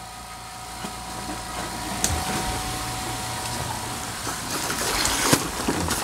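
Water and air rushing and sputtering out of a pipe-flushing outlet hose into a floor drain. The rush builds gradually, with a couple of sharp pops. Rusty water is being flushed out of heating pipe by water and compressed-air pulses.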